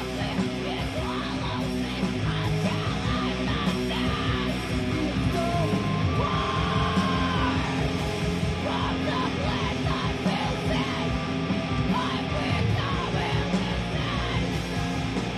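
Heavy metal music: electric guitars with yelled, screamed vocals over them.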